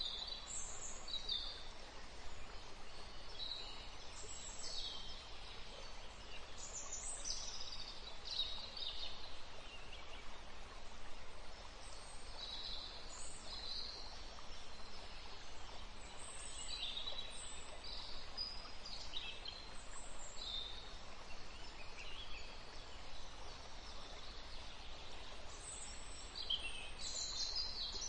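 Small birds chirping and calling on and off over a steady background hiss.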